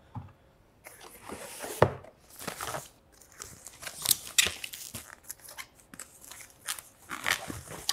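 White plastic wrapping crinkling and rustling as it is pulled off a monitor stand. A sharp knock about two seconds in.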